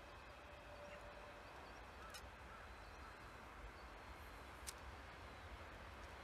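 Near silence: faint outdoor ambience with a low rumble, a few faint chirps and two light clicks.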